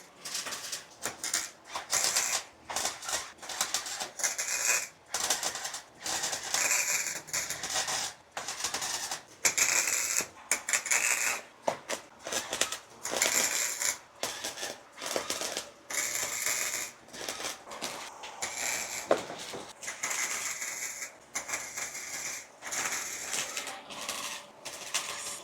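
Welding arc crackling in short bursts, about a dozen, each lasting one to three seconds with brief pauses between: fresh sheet-metal patches being stitch-welded into a car's rusted rear hatch.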